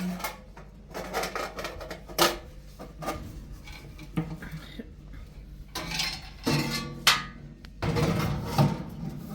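Irregular knocks and clatter with a few sharp clicks, the loudest about two seconds in and about seven seconds in.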